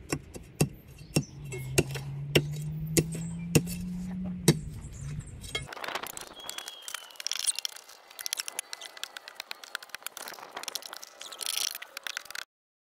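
Hand digging tool working hard ground and stones in a trench, with sharp clinks about every half second over a low steady hum. About six seconds in the hum stops and quicker scraping and clinking follow, then the sound cuts off near the end.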